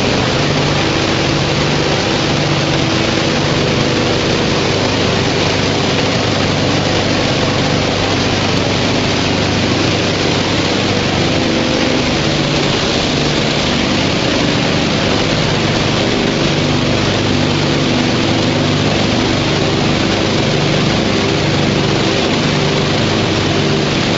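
Tire recycling line machinery running: a steady, loud mechanical din with a few steady hums underneath.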